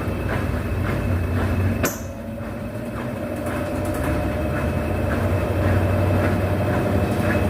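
Brastemp BWH15 top-loading washing machine in its spin cycle, running with a steady low hum and a faint beat about twice a second. There is a click about two seconds in, and after it the spin grows slowly louder. No hose rattle is left, only the ordinary vibration of the spin, with the drain hose clipped and padded with foam against the cabinet.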